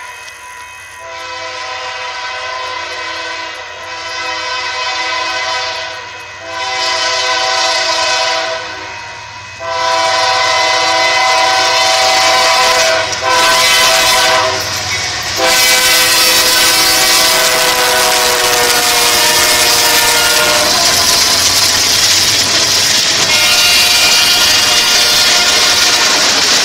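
Freight train locomotive sounding its multi-note air horn in a string of long blasts that grow louder as it approaches. About fifteen seconds in, the train passes close by with a loud rush of engine and wheel-on-rail noise, while the horn chord slides slightly lower in pitch and fades out.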